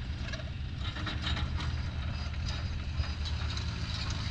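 Takeuchi T216 mini excavator's diesel engine running steadily, with scattered light metallic clicks and rattles over it.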